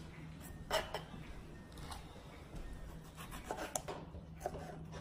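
Kitchen knife slicing tomatoes on a cutting board: a few scattered taps and scrapes of the blade against the board, over a faint steady hum.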